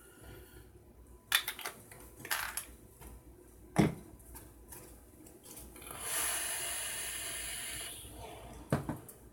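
Small clicks and knocks of vape gear being handled and set down on a tabletop, with one sharper knock about four seconds in. A steady hiss lasts about two seconds from around six seconds in.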